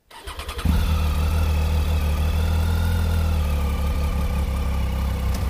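Triumph Tiger 800 XCx's three-cylinder engine being started: a short burst of cranking, then the engine catches under a second in and idles steadily.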